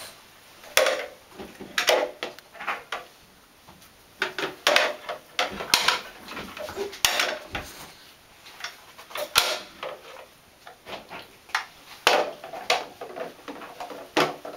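Plastic bath toys knocking and clattering against each other and the plastic tub in irregular sharp knocks, as a toy boat and toy fish are handled.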